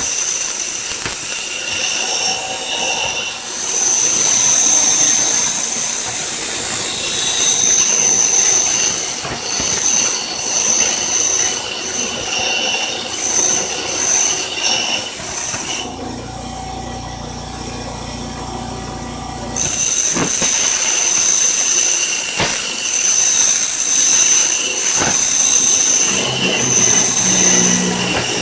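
Bench grinder wheel grinding a piece of metal: a loud, steady, high-pitched screech. About halfway through it drops away for a few seconds, leaving a lower hum, then comes back.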